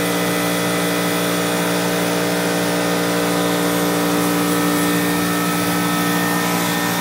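A motor running steadily: an even machine hum holding several fixed pitches, with a constant hiss over it.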